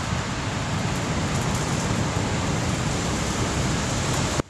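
Gusty pre-thunderstorm wind buffeting the microphone: a steady rushing hiss over a fluttering low rumble, with no thunder heard. It cuts off suddenly near the end.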